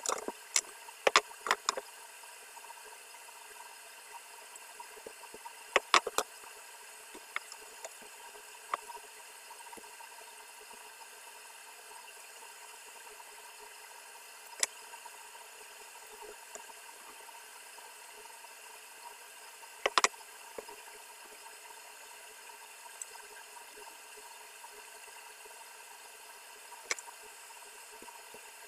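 Scattered sharp clicks and knocks of hand work with tools and wiring while a socket board is being fitted, several in quick succession at the start, a pair about six seconds in, then single ones every few seconds, over a steady hiss.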